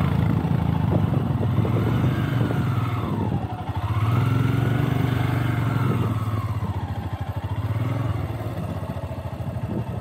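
Motorcycle engine running as the bike rides slowly, its pitch sinking and rising again with the throttle about three and a half seconds in.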